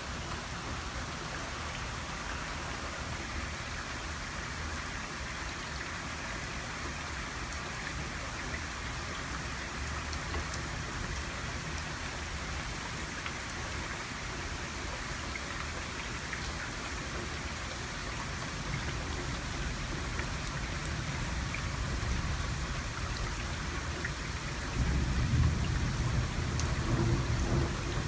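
Thunderstorm: steady rain hiss, with low rolling thunder building in the last ten seconds and loudest near the end.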